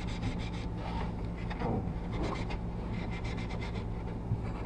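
Steel wool scrubbing back and forth over the steel blade of a Stanley No. 5 hand plane in quick, even strokes, rubbing off surface rust and the film left by rust remover.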